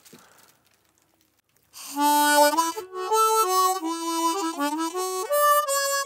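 Harmonica playing a melody, starting about two seconds in after near silence, with notes that step up and down.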